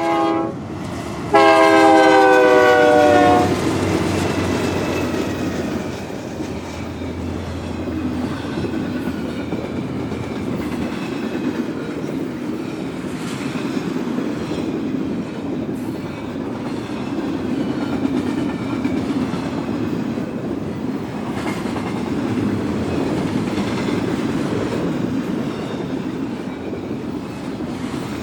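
Lead locomotive horn of four GE Dash 9 diesel locomotives: a short chord, then a longer, louder blast about a second in that drops slightly in pitch as the engines pass. Then the locomotives and the long intermodal freight train roll by with a steady rumble and the clatter of wheels on the rails.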